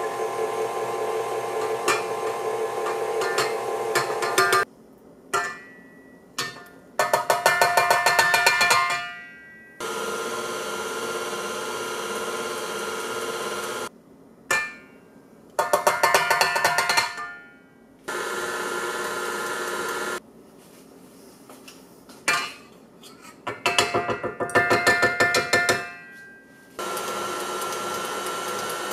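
KitchenAid stand mixer with a wire whisk beating batter. Steady stretches of motor whine stop abruptly into quieter gaps with small clicks. Three bursts of rapid, rattling strokes grow louder as they go.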